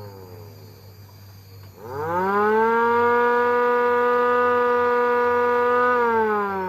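MS-290 siren winding down at first, then winding up quickly about two seconds in to a steady wail. The wail holds for about four seconds before the pitch starts to fall again near the end.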